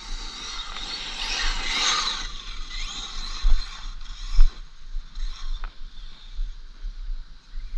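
Tekno MT410 electric RC monster truck running, its brushless motor and geared drivetrain whining and rattling, with pitch glides early on. Several sharp knocks come through, the loudest about three and a half and four and a half seconds in.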